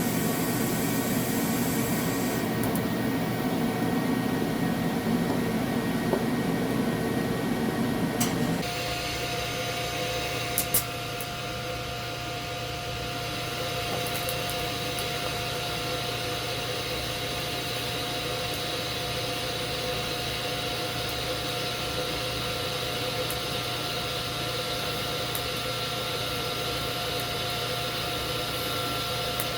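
Everlast TIG 185 welder's arc running at about 120 amps, a steady noisy buzz that stops abruptly about 8.5 seconds in. After that the machine's cooling fan and a steady whine carry on, with two quick clicks about two seconds after the arc stops.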